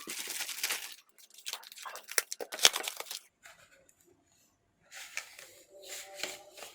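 Plastic packaging rustling and tearing in stretches, with a couple of sharp clicks a little over two seconds in, the loudest about two and a half seconds in, then a pause of over a second before more rustling.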